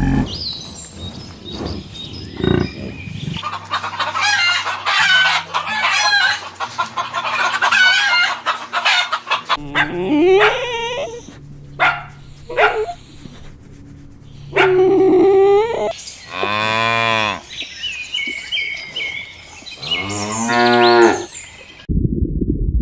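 Farm animals calling in turn: a stretch of busy, high chirping and clucking from poultry, then a cow mooing twice, two long low calls in the second half.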